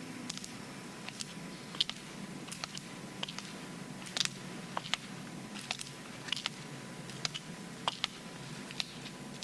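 Scattered sharp clicks and ticks, about one or two a second at uneven spacing, over a quiet low steady hum.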